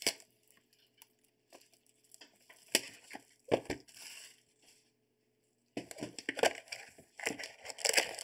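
Plastic shrink wrap being torn off a sealed trading-card box and crinkled, with sharp cracks and rustles. There is a brief total dropout to silence a little past the middle, followed by thicker crackling.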